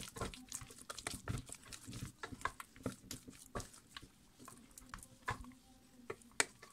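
Wooden spatula beating thick, sticky choux pastry dough in a stainless steel saucepan: an irregular run of clicks, knocks and scrapes, several a second, as the egg is worked into the dough.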